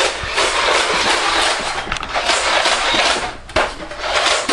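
Nerf Vulcan blaster firing rapidly, a dense clattering burst that breaks off suddenly about three and a half seconds in, followed by a few separate clicks.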